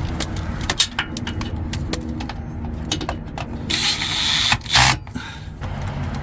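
Ratchet wrench clicking in short runs while a battery cable bracket is fastened, with a louder, noisier stretch about four seconds in.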